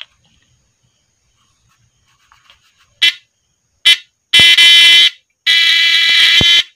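Homemade fish stunner's high-voltage output sparking against a terminal: two short crackles, then two loud buzzing arcs about a second long each. The unit is working and throwing a strong spark.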